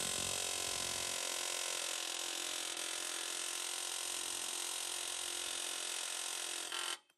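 Pneumatic air hammer with a punch bit driving a rivet out of a 1964 Ford F100's steel frame: a continuous, rapid buzzing rattle of blows. It stops suddenly near the end as the rivet gives way.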